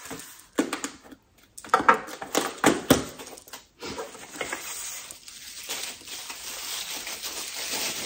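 A small cardboard box being handled and opened, with sharp scrapes and knocks of cardboard, then a steady crinkling rustle of packing paper as a wrapped item is pulled out of it.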